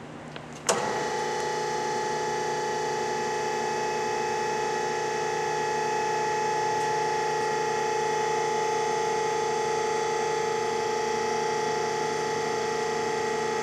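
Hydraulic feed and elevation of a WF Wells F15 horizontal band saw switching on with a click about a second in, then running with a steady hum as the saw head rises on its automatic return.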